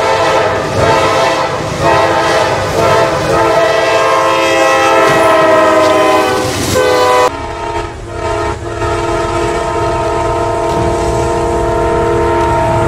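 Locomotive air horns sounding long, loud multi-note chords, with the rumble of the train beneath. Near the middle the chord bends down in pitch, then it switches abruptly to a different horn chord.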